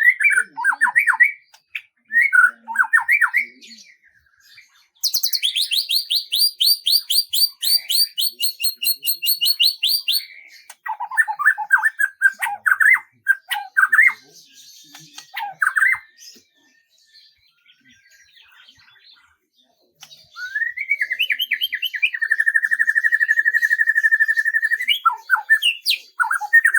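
Songbird singing in varied phrases: short falling whistled notes, then a fast, high trill lasting about five seconds, more scattered notes, a pause of a few seconds, and a steady trill held for several seconds near the end.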